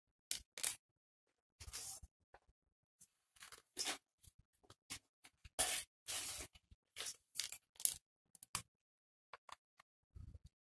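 Hands handling things out of frame: an irregular run of short rustles and sharp clicks, then a fuller soft bump about ten seconds in as the hands come down on the sheet of paper holding a drawing pen.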